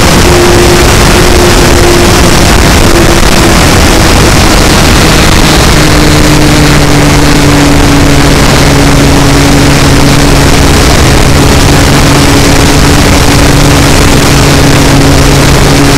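Propeller and motor of a radio-controlled model Cessna Cardinal 177 in flight, heard from a camera on its nose: a loud, steady drone under heavy wind rush on the microphone, its hum dropping slightly in pitch about four to five seconds in.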